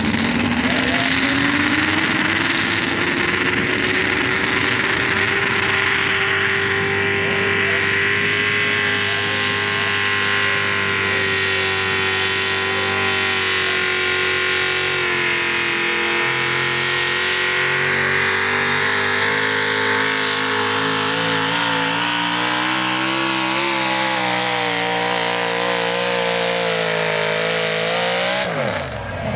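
Pulling truck's engine, a modified Ford pickup's, running at full throttle while it drags a weight-transfer sled. The revs climb over the first couple of seconds and hold at a high, steady pitch, waver in the last few seconds, then fall away sharply near the end as the throttle is let off.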